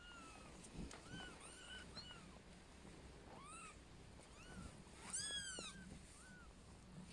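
Kitten mews: a string of short, faint, high-pitched mews, the loudest and longest about five seconds in.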